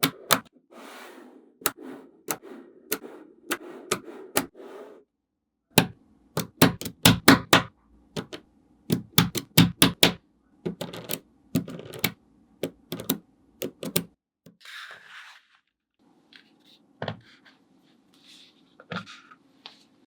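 Small magnetic balls clicking and snapping together as pieces are set in place, in irregular quick clusters of sharp clicks with short pauses between them.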